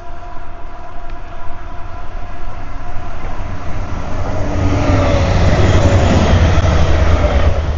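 A train passing, its rumble and wheel noise building to a peak about six seconds in, then easing off.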